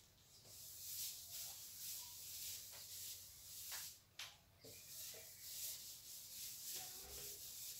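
Whiteboard duster wiping marker off a whiteboard in quick repeated rubbing strokes, with two sharper knocks about halfway through.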